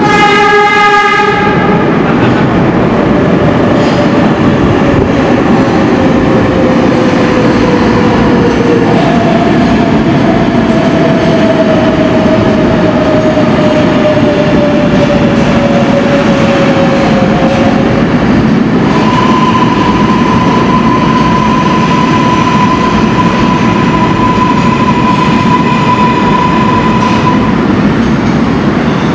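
R188 subway train pulling into a station. It opens with a short horn blast, then the cars pass with a loud steady rumble and clatter. Over this, the traction motors give slowly falling whines as the train slows, and a steady higher tone sounds near the end.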